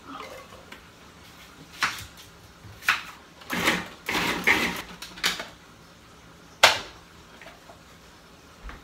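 Small food processor pulsed in several short bursts, chopping onion and bell pepper, with a sharp plastic clack later on as the processor is handled.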